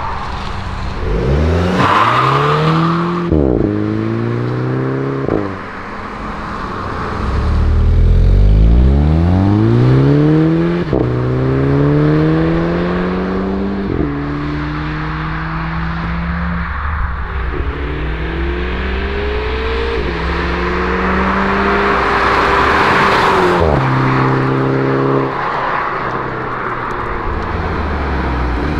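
VW Golf VI GTI's 2.0 TSI turbocharged four-cylinder with the stock exhaust, accelerating hard several times. The engine note climbs and is cut by quick drops in pitch as the DSG gearbox shifts up. Near the end it steadies and then falls away as the car slows.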